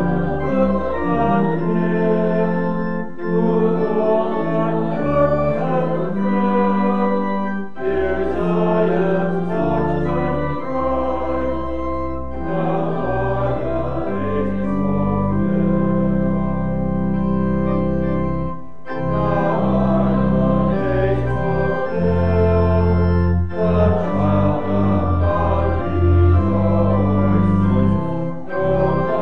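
Church organ playing a hymn tune in held chords, with short breaks between phrases every few seconds.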